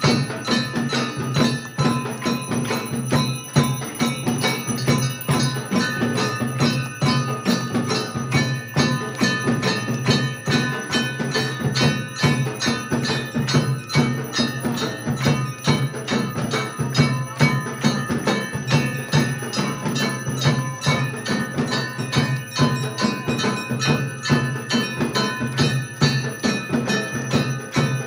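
Temple bells ringing rapidly and without pause during an aarti, several clanging strokes a second, with a steady low drone beneath.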